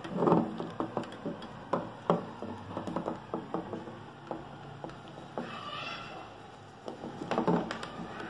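Irregular light clicks and knocks of plastic parts being handled and fitted as a treatment handpiece is taken up and connected to the machine, with a short squeak a little past the middle.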